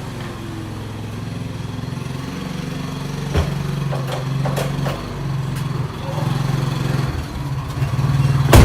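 Engine idling steadily, with a few light clicks partway through and one sharp knock near the end.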